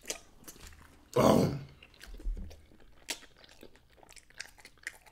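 Close-up chewing and crunching of fried hot chicken wings, with many small sharp crunches and mouth clicks. About a second in, a short voiced sound comes from the eater.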